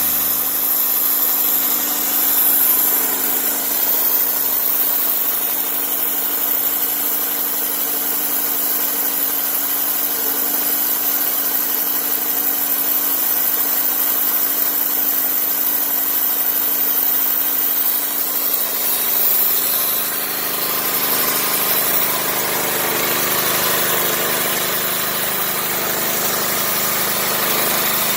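Sawmill running steadily: a continuous engine and machinery drone. About twenty seconds in the sound shifts and gets deeper.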